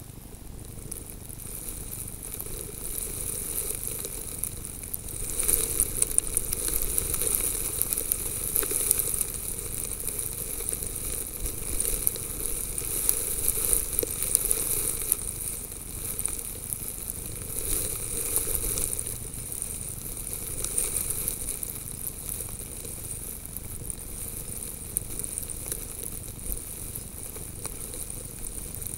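Fine snow grains pattering and hissing against a camera sitting in the snow, a dry crackling hiss that swells a few times.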